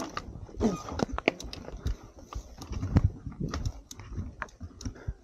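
Mountain bike rattling over a rocky singletrack: irregular clicks, knocks and low thumps from the wheels, frame and drivetrain as it rolls over rough ground.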